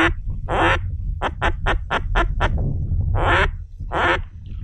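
Hand-held mallard duck call blown in a quacking sequence: two drawn-out quacks, a quick run of about eight short quacks, then two more drawn-out quacks.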